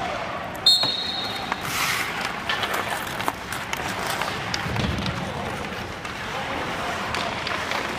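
Ice hockey practice on an indoor rink: skate blades scraping and carving the ice, with repeated sharp clacks of sticks on pucks in an echoing arena. One loud knock just under a second in is followed by a brief high ringing tone.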